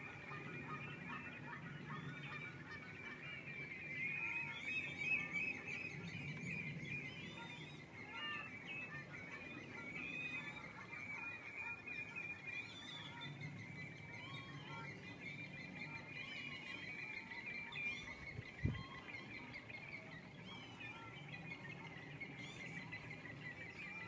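A dense, continuous chorus of many wetland birds calling at once, short overlapping chirps and piping calls. A single brief low thump about three-quarters of the way through.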